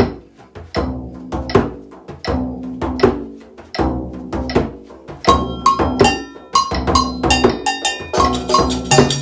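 Frame drum (tar) playing a surdo pattern, a repeating syncopated run of low, resonant strokes. About five seconds in, agogo bells and tambourine join on top with bright, high ringing strikes.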